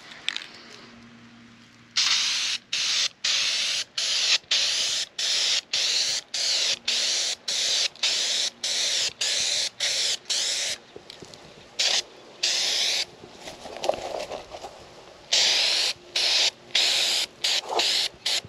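Aerosol spray paint can hissing in a long run of short sprays with brief breaks between them, starting about two seconds in, then a few more spaced-out sprays in the second half.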